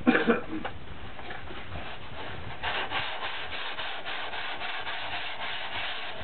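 Sandpaper rubbing back and forth over a shaped surfboard in a continuous rasping scrape, with a few louder strokes at the start and another swell about two and a half seconds in.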